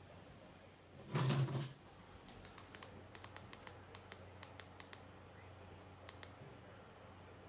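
Typing on a computer keyboard: a run of irregular, sharp key clicks for about four seconds, over a faint steady hum. A brief, louder pitched sound comes about a second in, before the typing.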